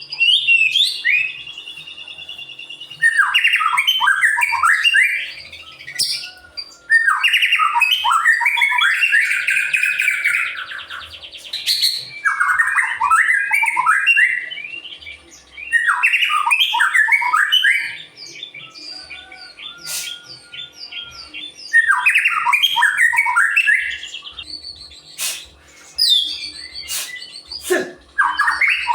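White-rumped shama (murai batu) singing at full volume in repeated phrases of fast, harsh, falling notes with short pauses between. About eight seconds in it holds a longer buzzy passage, and a few sharp clicks are heard.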